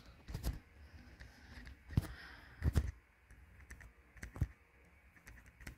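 Stylus tapping and clicking on a tablet screen during handwriting: a handful of separate short taps with quiet between them.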